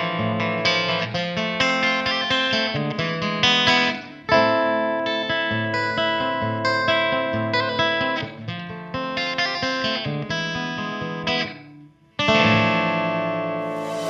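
Guitar music of picked notes played one after another. It breaks off briefly near the end and then starts again.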